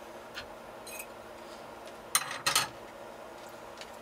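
Kitchen handling noise at a stove: a few light clicks, then two sharp knocks about a quarter-second apart a little past halfway, of a frying pan and utensil being handled.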